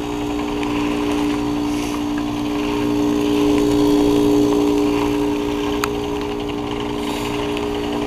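Carrier Comfort heat pump outdoor unit running in its defrost cycle: a steady mechanical hum with two strong low tones over a rumble, swelling slightly midway. A brief click about six seconds in.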